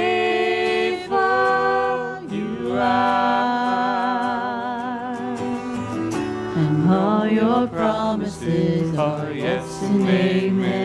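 Live worship song: singers hold long, wavering notes over guitar accompaniment.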